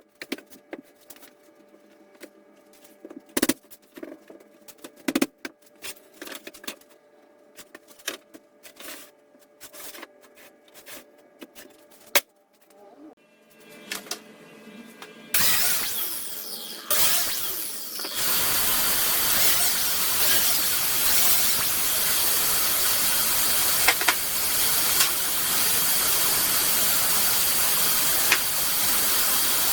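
Scattered knocks and clicks of tools and materials being handled. About halfway in, a loud, steady rushing noise starts and runs on.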